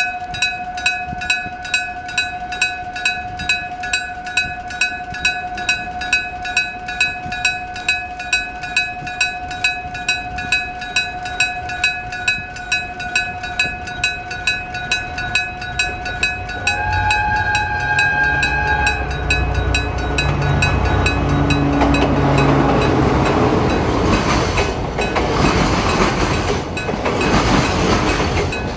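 Electric-gong level-crossing bell striking evenly, about twice a second. Partway through, a railway horn sounds briefly, then a diesel locomotive's engine rumble builds and the train rolls over the crossing, its wheel noise drowning out the bell.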